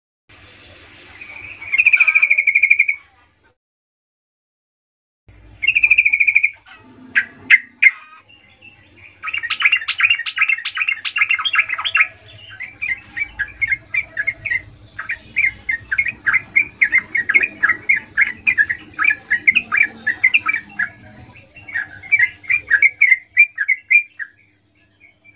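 Yellow-vented bulbul singing: two short bubbly trills with a silent gap between them, a few sharp clicks, then a long unbroken run of rapid chattering notes. This is the continuous rolling ('ngerol') song of a bird in full voice, the kind used as a lure call to draw replies from other bulbuls.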